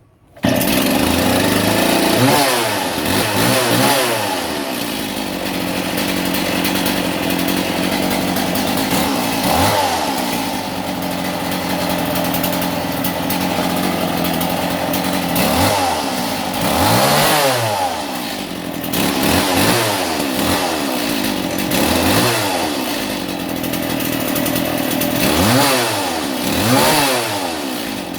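Shindaiwa two-stroke concrete cut-off saw engine catching just after the start, then running with the throttle blipped up and down repeatedly, its pitch rising and falling every second or two.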